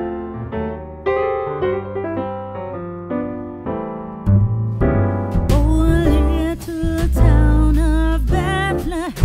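Background music: electric piano notes, joined about halfway through by a deep bass and a wavering singing voice.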